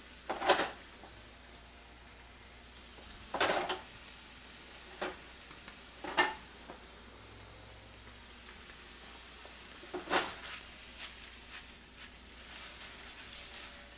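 Chicken pieces in soy sauce sizzling steadily in a stainless steel frying pan over a gas flame, with a few sharp knocks of the pan. Near the end the chicken is tossed in the pan: a quick run of clatter and scraping.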